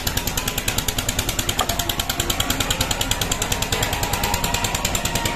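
A machine running with a rapid, even pulse, about eight beats a second.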